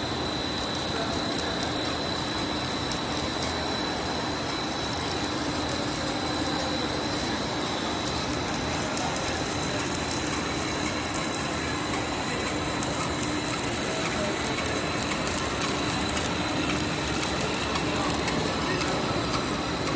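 Polypropylene baler twine production line running: a steady, unchanging machine din with a constant high-pitched whine over it.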